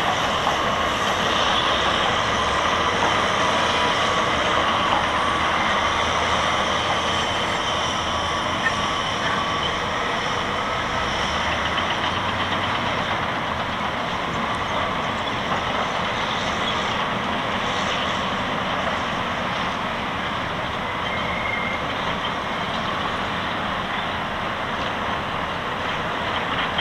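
Diesel engines of heavy earthmoving machines, a crawler bulldozer and wheeled motor scrapers, running steadily as they work. It is one continuous mechanical noise with no pauses.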